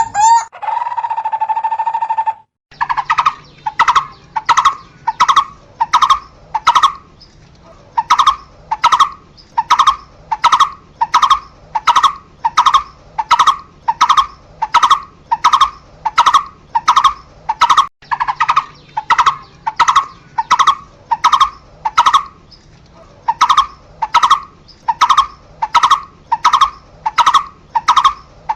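Barbet giving its call: a long run of short, evenly spaced hooting notes, about one and a half a second, with two brief pauses. A steady held tone comes first, for about two seconds.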